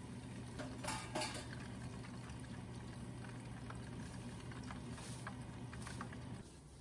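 Battered shrimp deep-frying in a wok of hot oil: a steady bubbling sizzle, with a few sharp clicks about a second in. The frying stops shortly before the end.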